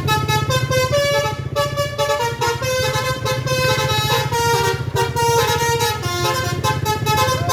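Bus telolet horn, a multi-note musical air horn, playing a quick tune of short notes that step up and down in pitch, over a steady low drone.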